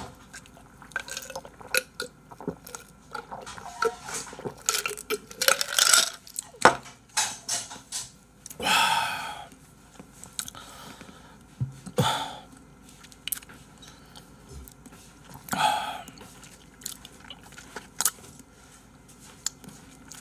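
Scattered clinks and knocks of a drinking glass and dishes being handled on a desk. Three louder breathy sounds from the mouth come about nine, twelve and sixteen seconds in.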